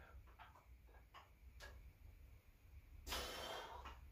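Quiet spell in a strict dumbbell curl set: a few faint light ticks from the dumbbells, then about three seconds in a short exhale as the next curl begins.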